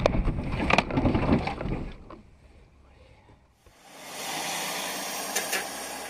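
A car running off the road into brush and a wooden fence: heavy rumbling with sharp knocks, dying away about two seconds in. After a short quiet gap, a steady hiss of road noise in a moving car.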